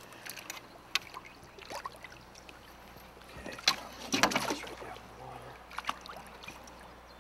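Water splashing and sloshing as hands handle a king salmon in a landing net at the side of a boat, with a few sharper splashes, the loudest a little past the middle.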